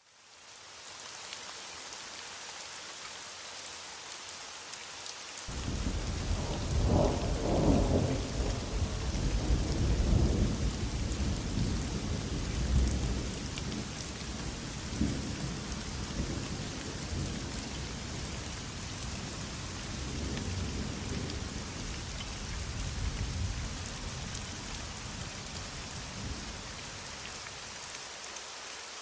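Heavy rain falling steadily as an even hiss, fading in at the start. About five seconds in a long, rolling rumble of thunder begins, loudest over the next several seconds, and dies away about twenty seconds later.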